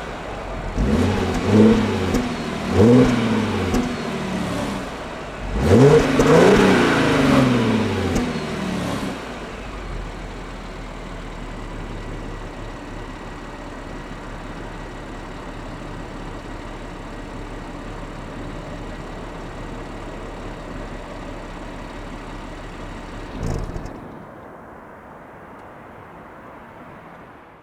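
Stock exhaust of an Audi A7 Sportback 3.0 TFSI supercharged V6 being revved: two short blips, then a longer rev about six seconds in that falls back, followed by steady idling. Near the end comes a brief sound, and then the level drops away.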